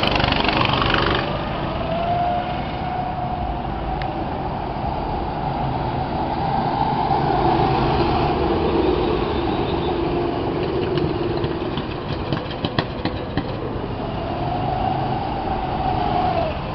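Small go-kart engines running as karts drive by on the track, the engine note rising and falling with each pass. A few sharp clicks come about three-quarters of the way in.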